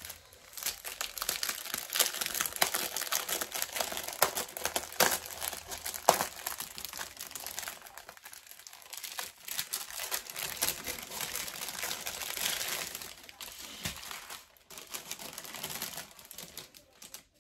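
Clear plastic packaging crinkling and rustling as it is handled and pulled open, with a short lull about halfway through.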